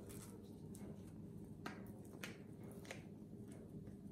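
A small ripe banana being peeled by hand, the skin pulled back in strips: a few faint soft tearing clicks over a low steady room hum.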